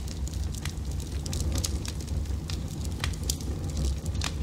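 Fire sound effect: a steady low rumble of flames with sharp, irregular crackles and pops, several a second.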